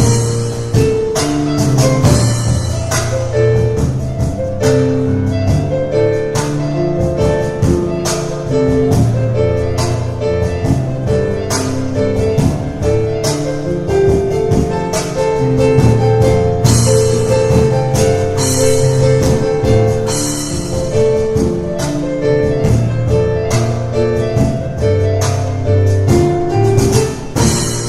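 Piano and percussion playing a fast, driving instrumental piece, with rapid piano runs over steady hand-drum hits; the playing falls away into a ringing held chord near the end.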